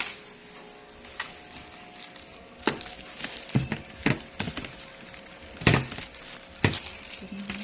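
Irregular knocks and clatter from things being handled, about seven sharp hits, over a faint steady hum.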